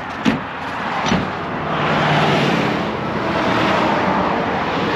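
Highway traffic passing close by: tire and engine noise swelling and easing as vehicles go past, with a couple of short knocks in the first second.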